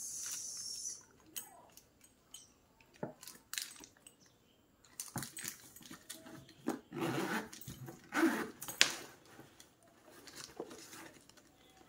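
Plastic wrapping crinkling as it is peeled off a handbag's strap, with scattered clicks and rustles from handling the bag. A few short, louder sounds come in the second half.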